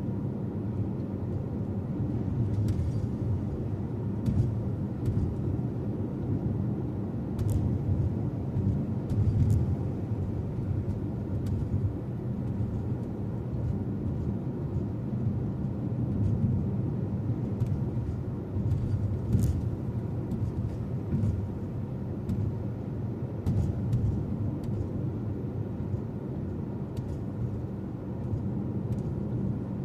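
Steady low rumble of a car driving, with scattered faint clicks now and then.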